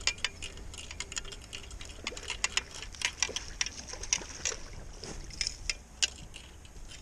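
Spinning reel and rod handling while a hooked trout is reeled in: irregular sharp clicks and ticks, several a second.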